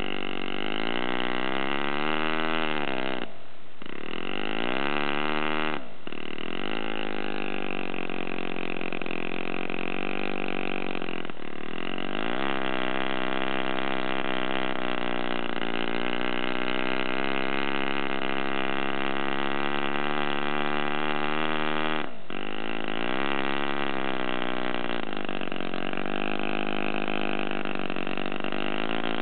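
Enya R1.20 four-stroke single-cylinder glow model engine running on a test stand, turning its propeller. Its speed rises and falls several times, with a few abrupt short breaks, and holds a steady high speed through the middle.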